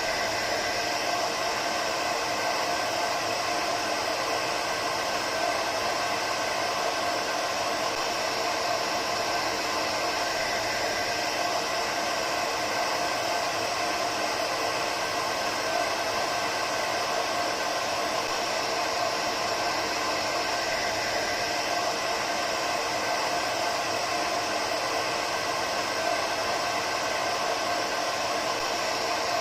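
Hair dryer running continuously at a steady speed: an even whooshing hiss of blown air with a constant motor hum, with no change in pitch or level.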